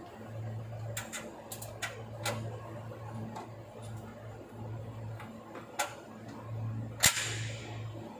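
Scattered metallic clicks and taps of hand tools and fittings on an air hose connection, over a low machine hum that pulses about once a second. One sharp, loud clank about seven seconds in, ringing briefly.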